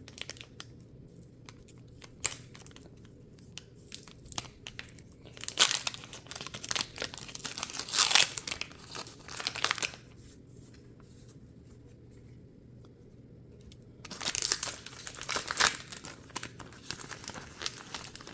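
Foil wrapper of a Pokémon trading card booster pack being crinkled and torn open by hand, in two stretches of crackling and tearing, one around the middle and one shortly before the end, with light handling clicks in between.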